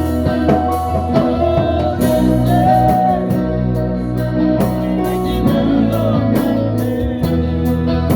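A gospel band playing live: guitar over a bass line with a steady drum beat.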